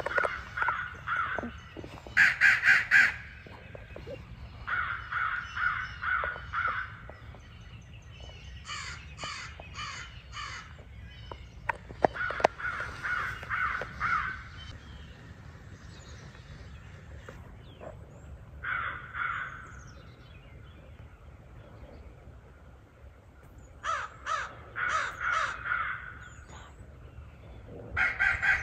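Crow caws in short bouts of several harsh caws each, repeated about eight times, the loudest bout about two seconds in: crows being called in during a crow hunt. A couple of sharp clicks come about twelve seconds in.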